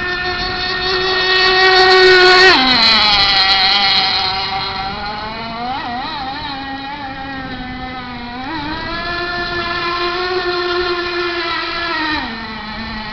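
High-pitched whine of an RC boat's OS .18 TZ two-stroke nitro engine with a tuned pipe, running fast on the water. Its pitch drops sharply about two and a half seconds in, just as it is loudest, climbs again later, and drops once more near the end.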